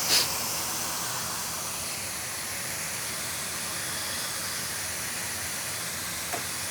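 A steady hiss of blowing air while the board is cooling, with a short louder puff of air just after the start.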